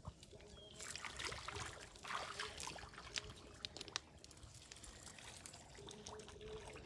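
Faint trickling and small splashes of water from hands working in a plastic bucket and wet mud, broken by scattered soft clicks.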